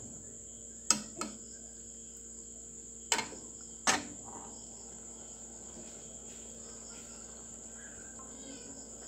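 A steady high-pitched insect trill, with four sharp knocks: two close together about a second in, and two more around three and four seconds in.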